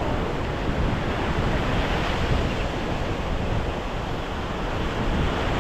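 Gulf surf breaking on the beach with wind buffeting the microphone: a steady, even roar with no distinct events.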